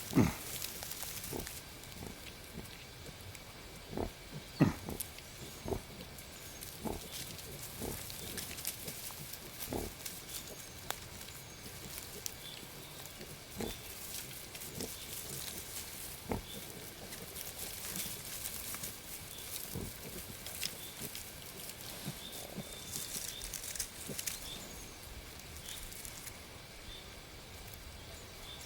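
Wild boars grunting: short grunts scattered irregularly, a few louder ones about four to six seconds in.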